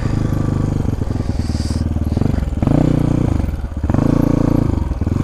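Off-road motorcycle engine running under load, its revs dropping and climbing again twice as the throttle is eased and opened.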